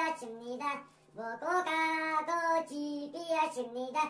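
A child's voice singing a short tune in held, stepwise notes, with a brief pause about a second in.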